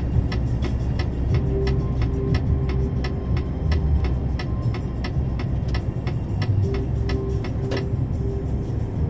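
A motor vehicle driving at speed on a highway, heard from inside: a steady low engine and road rumble, with a fast, regular ticking over it.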